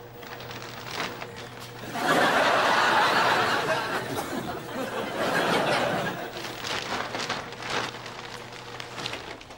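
Studio audience laughter that breaks out loudly about two seconds in and tails off over the next several seconds, over the crackle of a plastic bin bag being rummaged through.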